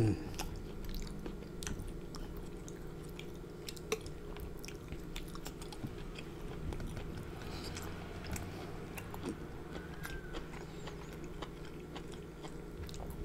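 Close-miked chewing of soft, saucy seafood in thick Alfredo sauce: a string of short wet mouth clicks and smacks over a steady low hum.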